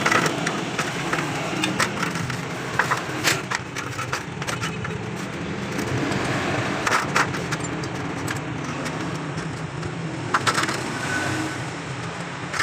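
Scattered sharp clicks and knocks of hand tools on motorcycle metal parts, over a steady low background rumble.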